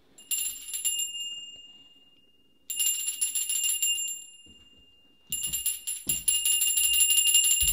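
A small hand bell shaken in three bouts of rapid, high ringing. The first two bouts ring out and die away; the third starts about five seconds in, is the longest, and keeps going. It is being rung to call for service.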